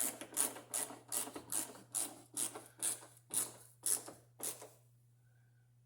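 Ratchet wrench clicking in a run of about a dozen quick, even strokes, working a door-handle bolt, then stopping about five seconds in.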